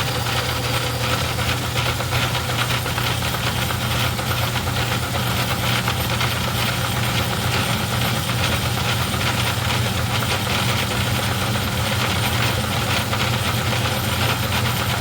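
Craftsman 109 metal lathe running under power feed, taking a cut along a steel workpiece: a steady motor hum with a fast, even clatter from the drive.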